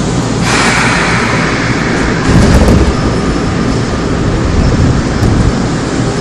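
Inside a car of a Seoul Metro Line 2 old 2000-series resistor-controlled electric train: loud train noise with a sudden burst of hiss about half a second in, then a heavy low thump about two seconds later.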